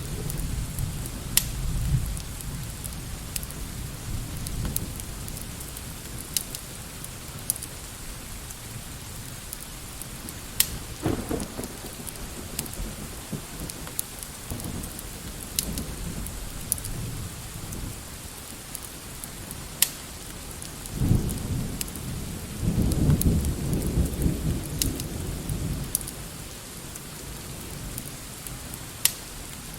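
Steady rain with low rumbles of distant thunder, the strongest about two-thirds of the way through, and scattered sharp crackles from a wood fire in a fireplace.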